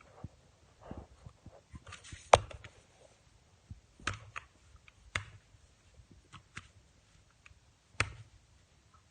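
Irregular clicks and knocks of objects being handled, with no steady rhythm. The sharpest tap comes a little over two seconds in, and others come near four, five and eight seconds.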